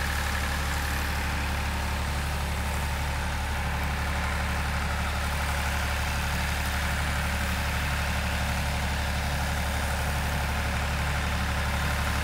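Tractor engine running steadily, pitch and level unchanged, as it drags a log on a chain.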